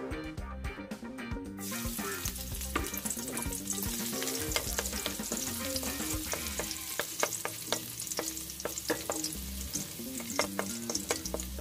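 Chopped garlic sizzling in hot oil in a wok, starting suddenly about two seconds in as the garlic goes into the oil. It is stirred with a wooden spatula, which gives frequent clicks and scrapes against the pan. This is the start of sautéing the garlic.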